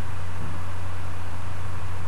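Steady low hum with an even hiss behind it, unchanging throughout: the background noise of the lecture recording, with no speech.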